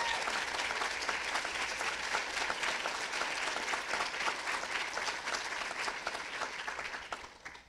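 Audience applauding, a dense steady patter of hand claps that dies away near the end.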